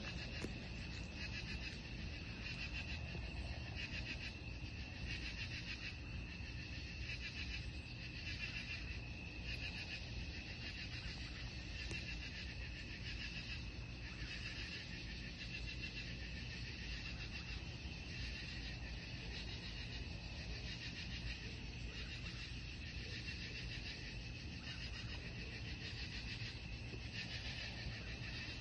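Night chorus of insects: a dense high-pitched trill that swells and fades in a steady rhythm, over a low steady hum.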